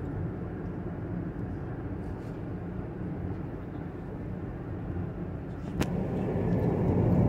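Steady road and engine noise of a moving car, heard from inside the cabin. It grows louder about six seconds in, just after a single click.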